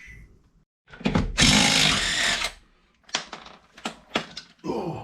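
An impact wrench runs in one burst of a little over a second, spinning a wheel's lug nut off. Several sharp clicks follow.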